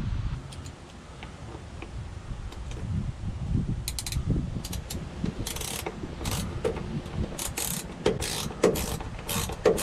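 Hand socket ratchet clicking in short runs of strokes as bolts are run into the floor pan. The clicks start about four seconds in and come more often toward the end, over a low rumble.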